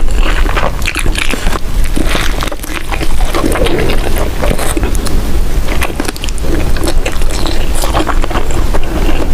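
Close-miked chewing of vegetable vermicelli: a dense, loud run of small mouth clicks and smacks with no pauses.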